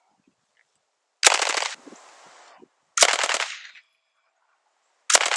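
MK760 9mm submachine gun (a Smith & Wesson Model 76 clone) firing on full auto: three short bursts of rapid shots, each about half a second long, roughly two seconds apart.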